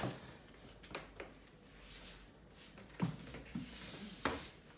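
Small bristle hand brush sweeping across a tile floor in short, soft strokes, with a few light knocks of the brush against the tiles.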